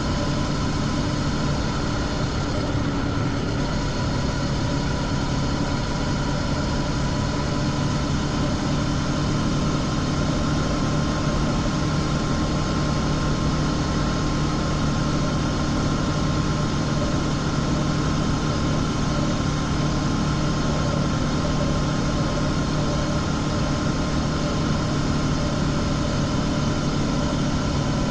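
Honda CB500X's parallel-twin engine with stock exhaust running steadily at cruising speed, with a constant hiss of wind and road noise.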